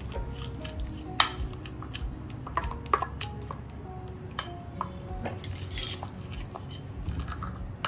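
Metal spoon stirring and scraping in a ceramic bowl, clinking irregularly against its sides as chocolate pieces are mixed with milk; the sharpest clinks come about a second and three seconds in.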